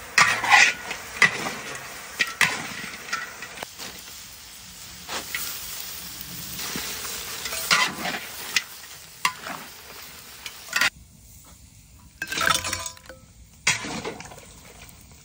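Blue crabs sizzling in a large steel wok, stirred and tossed with a metal spatula that scrapes and clanks against the pan. Near the end the sizzle drops away, leaving a few sharp clinks of the spatula against a dish.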